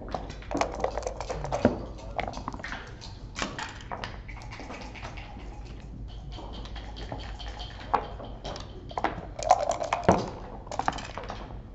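Backgammon checkers clicking and knocking as they are moved on the board, with dice clattering and the game clock being pressed. The sharp clicks come irregularly and are loudest near the end.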